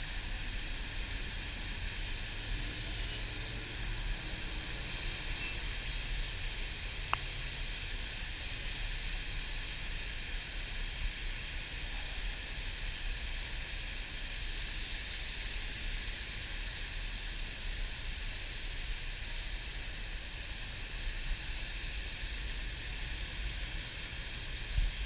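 Ride inside a city bus in the rain: a low, steady engine rumble under a constant hiss of rain and wet road. A single sharp click about seven seconds in.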